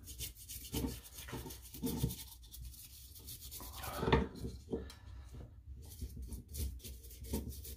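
Small brush dabbing and scrubbing poly shade (tinted polyurethane) into a deeply carved wood surface in irregular soft strokes, with one louder bump about four seconds in.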